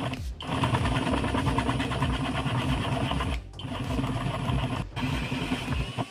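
A small power tool running with a fast, rattling buzz, stopping briefly three times and starting again.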